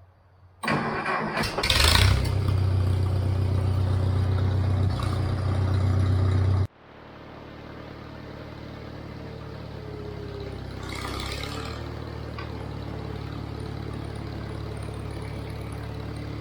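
Farmall 350 tractor engine starting: it catches about half a second in and runs loudly and steadily. At about seven seconds the sound drops abruptly to a quieter, steady engine run.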